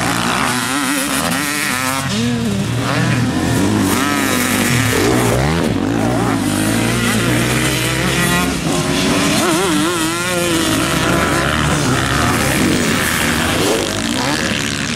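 Off-road motocross motorcycle engines revving hard on a dirt track, the pitch rising and falling repeatedly as riders accelerate, shift and back off through the turns.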